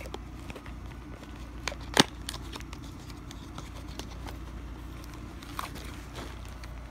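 Clear plastic bag crinkling and crackling as it is handled, with a sharp click about two seconds in.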